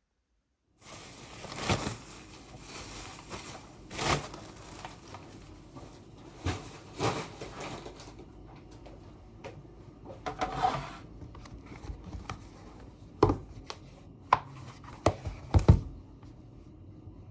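Household handling noises: rustling and scraping of objects being moved, with several sharp knocks and taps, the loudest near the end.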